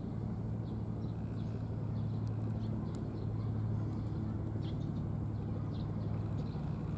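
A steady low mechanical hum, like a running engine or distant traffic, with a few faint short high ticks scattered over it.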